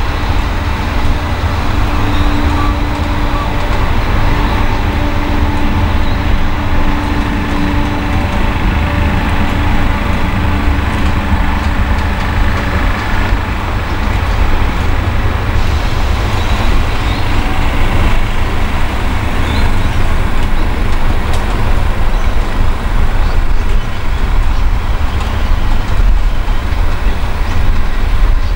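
The Ghan's stainless-steel passenger carriages trundling past, a steady rumble of wheels on rail, with a faint held hum during the first half.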